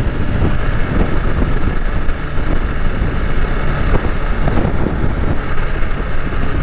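Motorcycle riding at speed, heard from the rider's helmet microphone: steady wind buffeting and road rumble with the engine running underneath.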